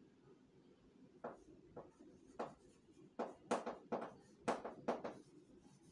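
Chalk writing on a chalkboard: a run of short taps and scrapes, about nine strokes starting about a second in, coming faster in the second half.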